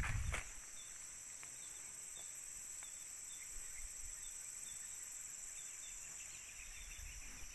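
Insects buzzing steadily at a high pitch, several layered tones at once, with faint short chirps repeating through them. A brief knock sounds at the very start.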